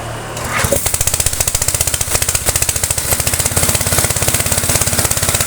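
Sanchin PS22 high-pressure wash pump, driven by an Asahigo 7.5 hp motor, coming under load about half a second in. A fast, even pulsing from the pump mixes with the hiss of the water jet from the modified nozzle, spraying at about 50 bar.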